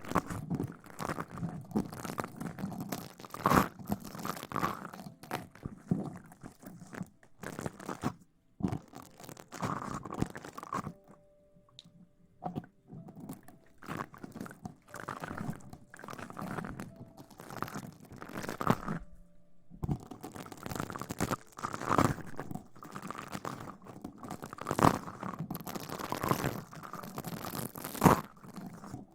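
Close-miked ASMR rustling: irregular crinkly, crunchy rustles, with a brief lull about twelve seconds in.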